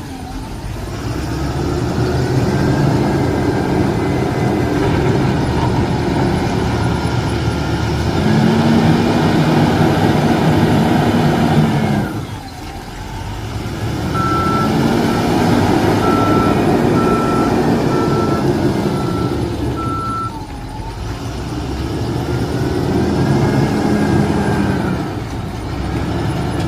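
Wheel loader's diesel engine revving up and easing off in long cycles of several seconds as it works, with a reversing alarm beeping steadily for several seconds near the middle.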